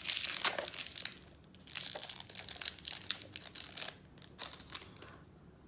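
Small plastic packaging crinkling and crackling as it is handled and opened. The crinkles are dense for the first second or so, then come as scattered crackles and clicks.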